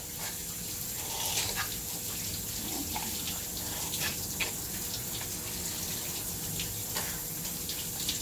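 Water running from a handheld shower sprayer onto a small dog's wet head and splashing down into a stainless steel grooming tub, a steady spray with frequent small splashes.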